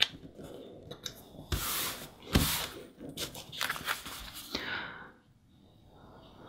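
Paper and cardstock handled by hand: a sharp tap, then rustling and scraping as a printed sheet is pressed onto a taped calendar page and the page is picked up, loudest about two seconds in and fading out near the end.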